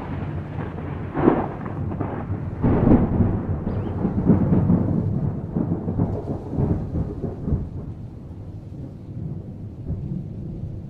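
Close thunder: a sudden loud crack, then several seconds of crackling, rolling rumble with louder peaks, dying away after about eight seconds.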